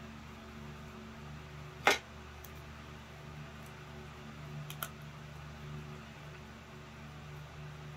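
Small hard parts handled on an opened laptop: one sharp click about two seconds in, then a few lighter clicks a little before the five-second mark, over a low steady hum.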